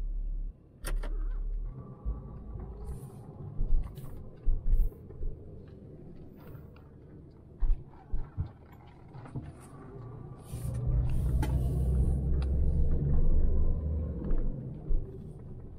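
Engine and road rumble heard inside a moving 1998 Jeep Grand Cherokee, with several short sharp knocks in the first half. About ten seconds in, the engine grows louder and stays up for a few seconds as the Jeep pulls away.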